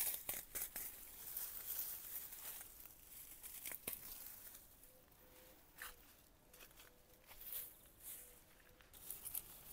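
Faint rustling and tearing of Bermuda grass (grama) runners and weeds being pulled up by hand from the soil, with scattered crackles and a few sharp snaps.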